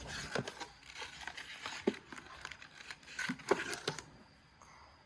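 Foil Pokémon booster pack wrappers crinkling and rustling as the packs are handled, with a few sharp clicks; it dies down about four seconds in.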